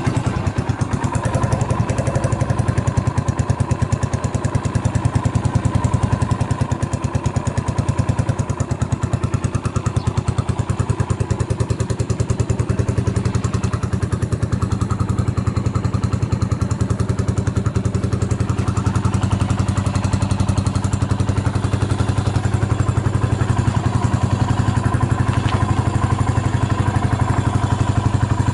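Yamaha SR400's air-cooled single-cylinder four-stroke engine running steadily at idle, an even rapid train of firing pulses; the seller describes it as running without any abnormal noise.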